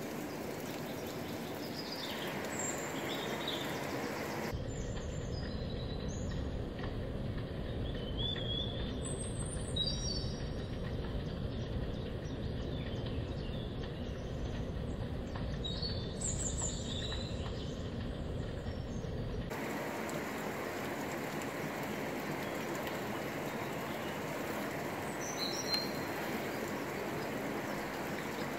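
Steady rush of a flowing river, with small birds chirping now and then. From about four seconds in to about nineteen seconds the rush turns duller and deeper, then returns to its brighter sound.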